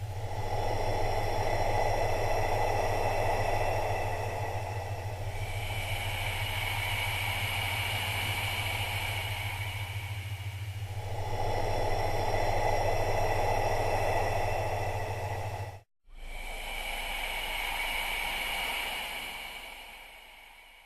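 Slow breathing, each breath phase lasting about five seconds: a hiss alternating with a thinner, higher airy sound, over faint steady high tones and a low hum. The sound cuts out for a moment about 16 seconds in and fades near the end.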